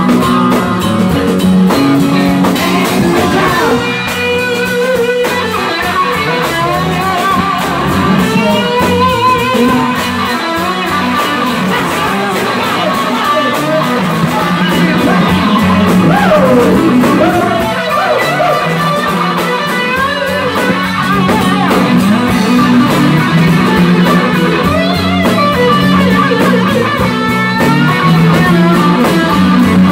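Live rock band playing: electric guitar lead with bent notes over a steady bass riff and drums, with no singing.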